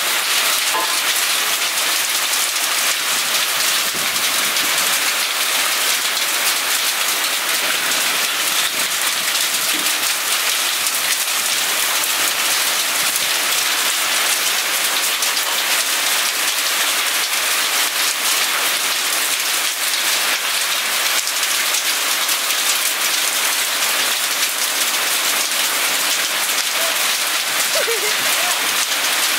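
Heavy downpour with hailstones falling: a dense, steady hiss of rain with a fine patter of impacts throughout.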